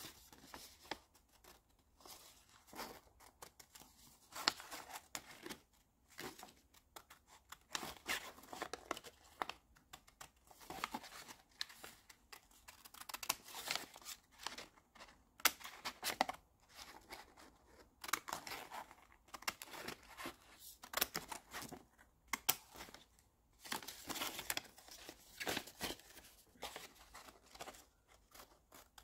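Small red-handled children's paper scissors snipping through white paper in many short, irregular runs of cuts, with the paper crinkling as it is turned.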